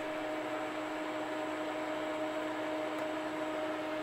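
A steady electrical hum, two even tones over a light hiss, unchanging throughout.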